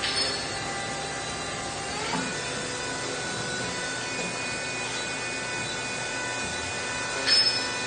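Puma 6G CNC lathe and its auto loader running: a steady machine noise with several steady whines. One whine rises in pitch about two seconds in, and there are short hisses at the start and a louder one near the end.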